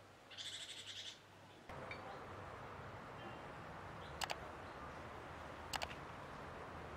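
A bird's short high trill, then steady open-air background with two sharp double clicks about a second and a half apart.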